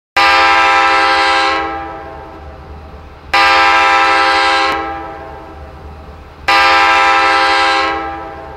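Austin pipe organ sounding the five-note chord of a Nathan K5LA locomotive horn, three blasts about three seconds apart. Each blast is held about a second and a half, then fades away over about a second.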